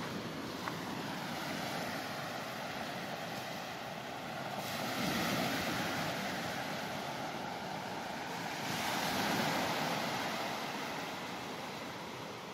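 Small sea waves breaking and washing up on a sandy beach, swelling louder twice.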